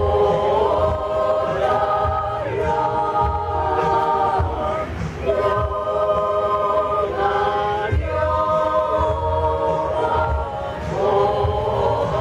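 Women's choir singing a cappella in harmony, long held chords in phrases of a few seconds with short breaks between them.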